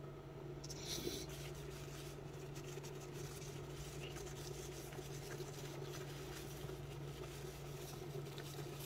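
Faint rustling and rubbing of a crumpled paper napkin as fingers are wiped, with a brief louder rustle about a second in, over a steady low hum.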